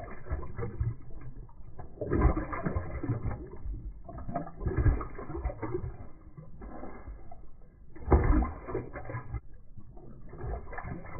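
Alaskan malamute lapping water from a glass tumbler, slowed down in slow-motion playback, so the laps come out as drawn-out wet splashes and gurgles in about six bursts a second or two apart.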